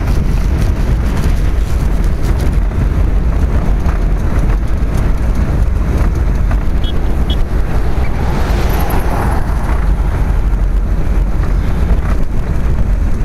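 Wind buffeting the microphone of a camera riding on a moving velomobile: a loud, steady low rumble with road noise underneath. A brief swell of louder noise about eight seconds in.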